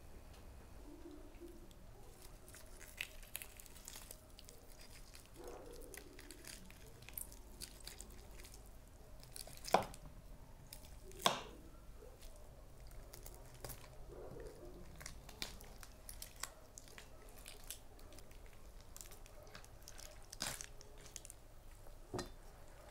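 Crisp-skinned roast rabbit being torn apart by hand: quiet crackling of the skin and tearing of the meat, with two sharper cracks about ten seconds in, a second and a half apart.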